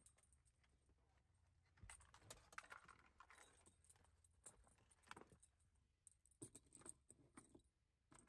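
Faint jingling and clinking of a set of keys being handled, in scattered small bursts of clicks.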